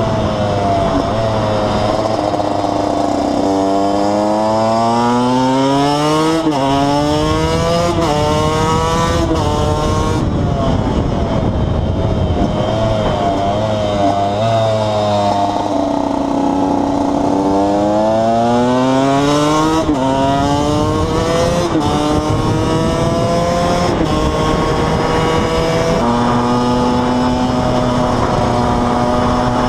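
KTM 125 EXC two-stroke single-cylinder engine riding along. It accelerates through the gears, the pitch climbing and then dropping sharply at each upshift, eases off, pulls up through the gears again, and holds a steady speed near the end.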